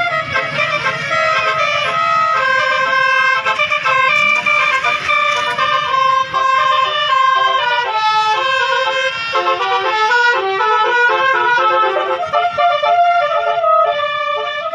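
Basuri telolet multi-tone air horn on a tour bus playing a fast melody of short, stepped notes, loud and continuous.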